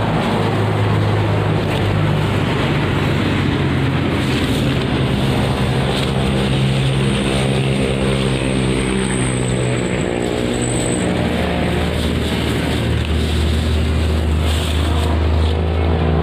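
A motor engine running steadily close by, its pitch dropping a little about ten seconds in.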